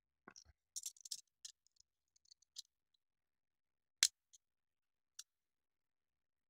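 Yellow snap-off craft knife being handled, with a run of light clicks and ticks, then one sharp snap about four seconds in as a dull blade segment is broken off with pliers.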